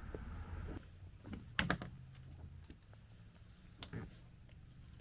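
Sharp clicks and snaps of twigs and branches being handled, in two short clusters about two seconds apart, as a hand reaches into a tree to free a snagged crankbait. A faint steady low hum runs underneath.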